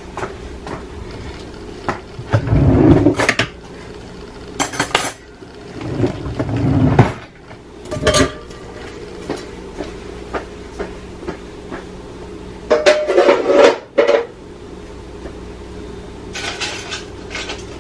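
Dishes and cutlery clinking and clattering as they are lifted out of a wire dish-drying rack to be put away, in several separate bursts with a few duller knocks among them.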